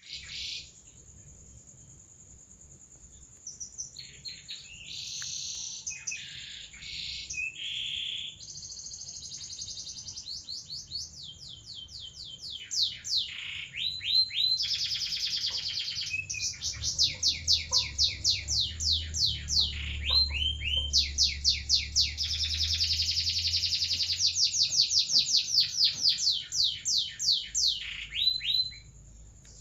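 Domestic canary singing a long, continuous song in the 'seri loper' style. It opens with buzzy notes and short rolls, then moves into long runs of rapid, repeated sweeping notes, several a second, that stop near the end.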